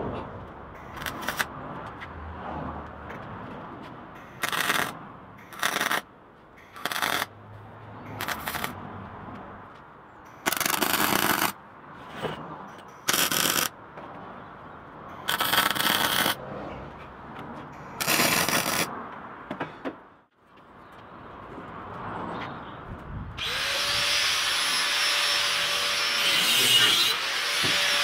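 A MIG welder arcing in about ten short bursts, each around a second or less, as tubes are welded onto a steel bicycle frame. Near the end an angle grinder starts and runs loud with a steady whine that dips briefly twice as it bites into the metal.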